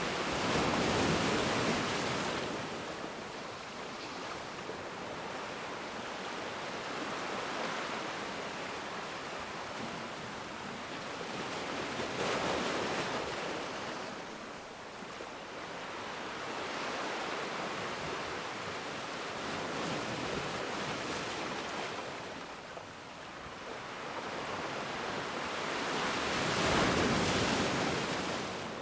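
Ocean waves breaking and washing on a shore, the surf rising and falling in slow swells about every six to eight seconds, loudest near the start and near the end.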